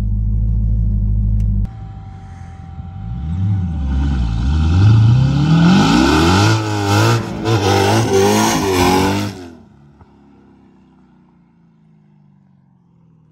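Supercharged Dodge Challenger SRT Hellcat V8 running. It is first heard as a steady low drone from inside the cabin. It then accelerates hard through several gears, the pitch climbing and dropping at each shift. About two-thirds of the way through it falls away abruptly to a faint rumble.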